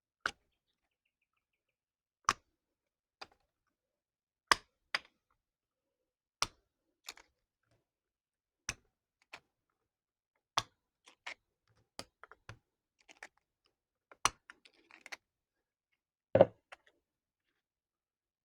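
Sharp clicks and clinks of small metal parts, one every second or two and sometimes in quick pairs, with a heavier, deeper knock near the end: nuts and bus bars being handled on the terminals of LiFePO4 battery cells.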